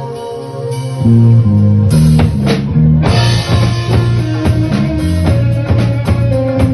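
Rock band playing live, with guitar, bass and drum kit. Held melodic notes give way about a second in to the full band coming in louder, with a steady drum beat.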